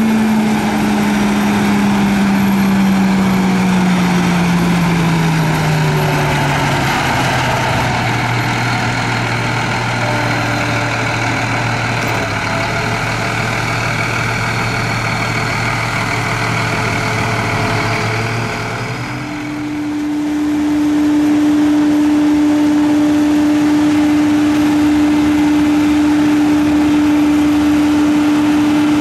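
Harsco 6700SJ2 track tamping machine's diesel engine and hydraulics running, with a steady tone that slides down in pitch over the first several seconds and then holds. About two-thirds of the way through it dips briefly and a higher steady tone takes over.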